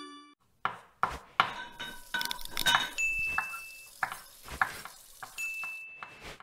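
Kitchen-themed logo sound effects: a quick run of clinks, knocks and clatter like utensils against dishes and glass, with a held high ringing tone about three seconds in and again about five and a half seconds in.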